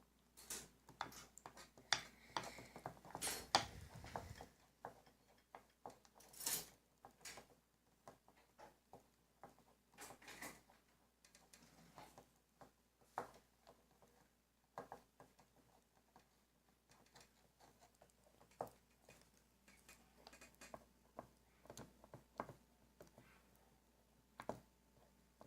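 A utensil stirring a slime mixture in a bowl: soft, irregular clicks and scrapes against the bowl, busiest in the first few seconds.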